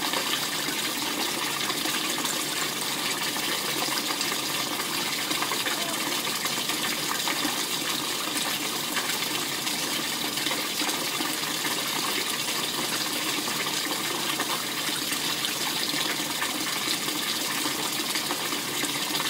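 Steady rush of water from a small waterfall feature pouring into a pool, very loud and unbroken.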